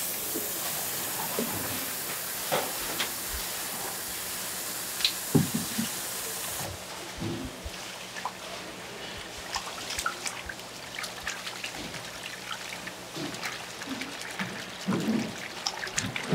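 Tap water running into a stainless steel bowl, cutting off about seven seconds in; after that, gloved hands slosh and squeeze sea squirt flesh in the water with small irregular splashes.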